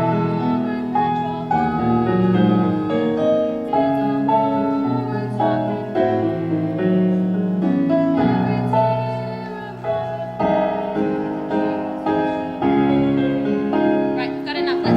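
Piano playing the accompaniment to a musical-theatre ballad, one note or chord after another.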